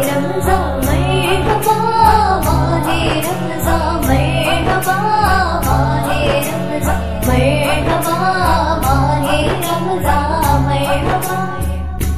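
Naat music: a female voice singing a melody over a steady percussion beat.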